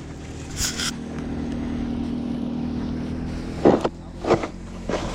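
Car engine running steadily. Three short scrapes of a snow shovel come near the end, about half a second apart.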